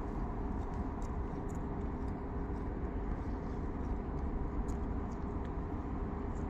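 Steady low rumble of outdoor city noise, even throughout, with a few faint high ticks.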